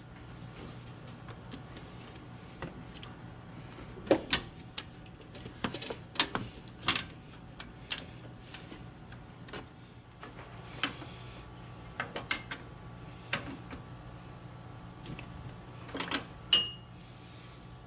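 Scattered clicks and knocks of hands and tools working hose clamps and fittings while radiator hoses and transmission cooler lines are reconnected to a radiator, over a steady low hum. One sharper metallic click near the end rings briefly.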